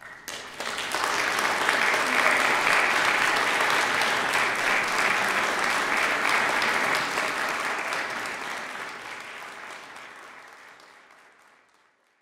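Audience applauding: clapping breaks out right after the final note, swells within a second, holds steady, then dies away over the last few seconds.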